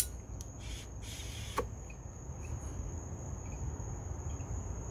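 A lighter clicked and held to a glass pipe's bowl, with a light hiss while the smoke is drawn in, ending in a sharp click about a second and a half in. A steady high-pitched trill runs underneath.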